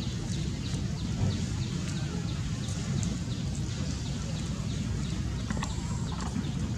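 Outdoor background: a steady low rumble under a short, high, falling chirp that repeats about twice a second, like a small bird or insect calling.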